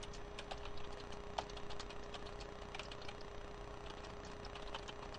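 Typing on a computer keyboard: a quick, irregular run of light key clicks over a steady low hum.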